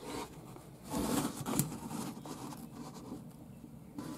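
Quiet rubbing and scraping handling noise from a hand and phone moving about inside a personal watercraft's engine bay, busiest about a second in.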